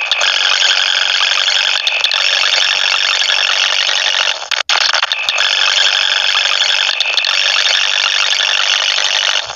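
A children's sing-along song recording sped up so far that the singing is no longer recognisable, leaving a dense, high-pitched, hissy wash of sound with no bass. It breaks off for an instant near the middle.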